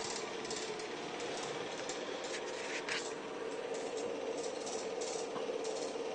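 Home-movie film projector running: a steady mechanical whir with a hum and a light, uneven clicking of the film mechanism.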